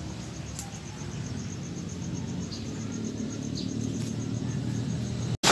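An insect, likely a cricket, chirping in an even, high-pitched pulse of about five chirps a second over a low steady rumble; the sound cuts off suddenly near the end.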